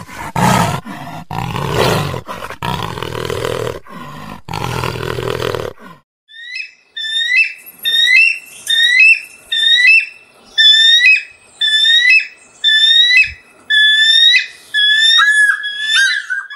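Jaguar growling in several rough, low bursts for about six seconds. Then a bald eagle calls a long series of high, sharp chirping notes, about two a second, each note bending quickly in pitch.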